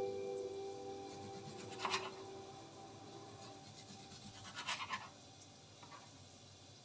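A kitchen knife sawing through a tomato onto a wooden cutting board: two short scratchy slicing strokes, about two seconds in and again near five seconds. The last acoustic-guitar notes die away at the start.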